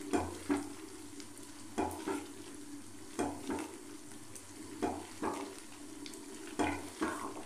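A spatula stirring chicken in a thick, sizzling spiced tomato-and-yogurt masala in a frying pan, the stirring strokes coming in pairs about every second and a half over a steady sizzle.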